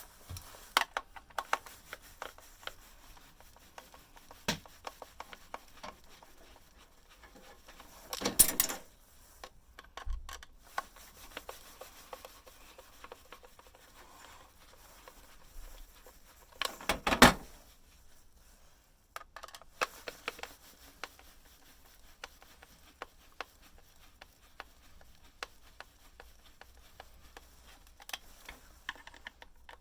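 Scattered clicks and knocks of plastic and metal parts being handled as a bread maker is taken apart, with two louder clatters about eight and seventeen seconds in.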